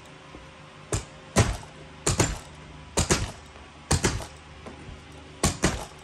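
Carpet knee kicker being bumped hard with the knee to stretch a stair runner tight over the top step. About six sharp thuds, many of them in quick pairs, roughly once a second.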